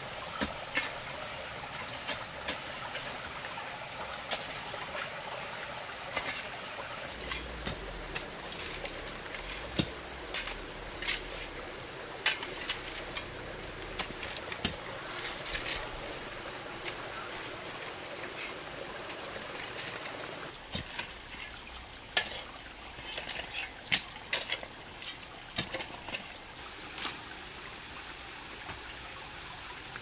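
Hand hoes chopping into and scraping dry, stony soil: irregular sharp knocks, roughly one every second or so, over a steady hiss.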